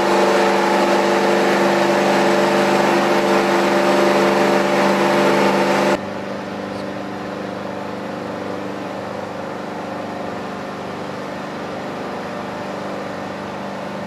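Heavy machinery of a missile transporter-erector running with a steady mechanical drone. About six seconds in it cuts abruptly to a quieter, even hum.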